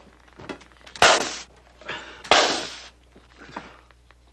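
Two loud, sharp bangs, one about a second in and one just after two seconds, each dying away over about half a second. A smaller bang falls just before the second one, and a few faint knocks come later.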